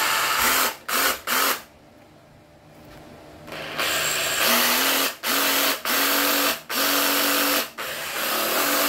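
Makita 18V cordless reciprocating saw run with no load in a series of short trigger pulls, each lasting about half a second to a second. The motor whine rises briefly as each burst starts, with a quieter pause of about two seconds after the first three.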